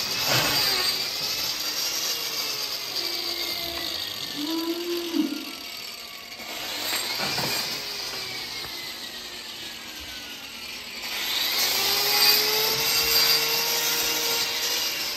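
Electric angle grinder grinding down a cow's hoof horn, its motor whine sagging in pitch several times as the disc bites into the hoof.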